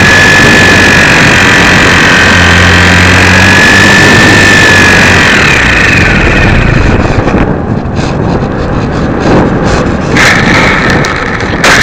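Super Cub LP RC plane's electric motor whining at a steady high pitch over loud rushing noise, then falling in pitch and winding down a little past halfway. After that come irregular short bursts of rushing noise.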